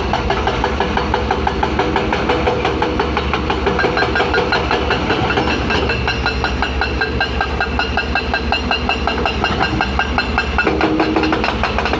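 Heavy diesel excavator running with a fast, steady hammering, typical of a hydraulic rock breaker pounding a boulder. A steady hum joins near the end.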